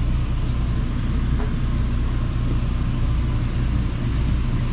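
A ferry's engine running with a steady, low rumbling drone, heard aboard the vessel.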